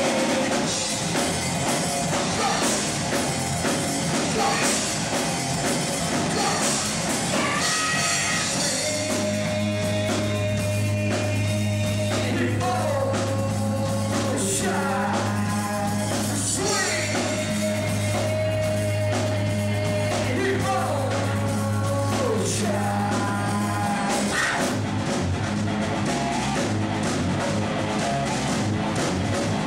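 Live rock band playing loudly, with a singer. From about nine seconds in, a long held low note runs under sliding higher notes until a little before the end.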